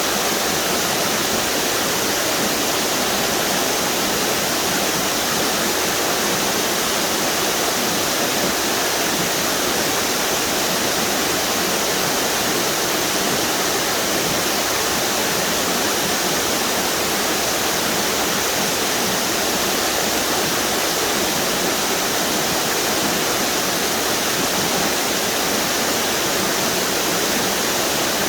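Waterfalls on a river pouring over rock ledges: a steady, unbroken rush of falling water, hissy and bright.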